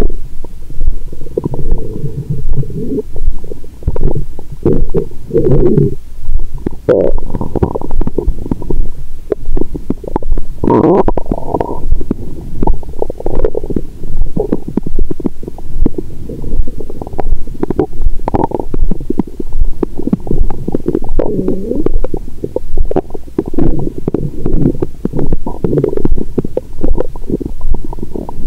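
Stomach and intestines gurgling and rumbling, heard through a stethoscope held to the belly: digestion sounds a few hours after a meal with wine. The gurgles come and go without pause, with louder squelches every few seconds and a soft regular pulse, about once a second, underneath.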